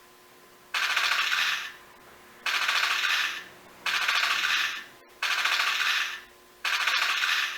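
Electronic rapid-fire sound effect played through the small speaker of a light-and-sound-equipped RX-78 Gundam plastic model: five rattling bursts of about a second each, with short pauses between them.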